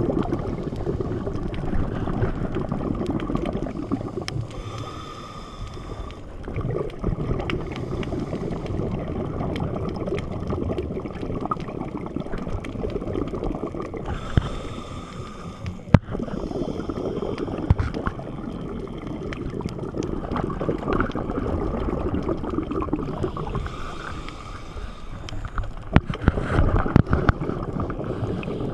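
Scuba diver's regulator breathing heard underwater through a GoPro housing: exhaled bubbles rumbling and gurgling most of the time, with a hissing inhalation three times, about ten seconds apart. A few sharp clicks near the end.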